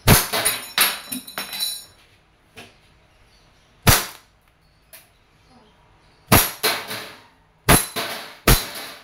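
WE P14 1911 Hi-Capa gas blowback airsoft pistol firing on green gas: sharp pops with the slide cycling, a quick run of shots at first, one alone about four seconds in, then a cluster near the end. BBs strike the plates of a steel spinner target with metallic pings and ringing.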